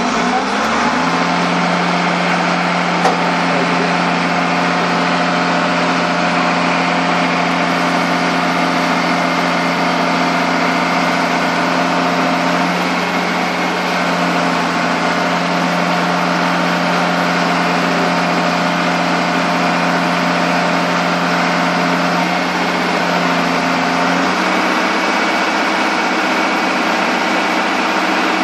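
An engine runs steadily, speeding up over the first second and then holding an even note. About 24 seconds in, its tone shifts.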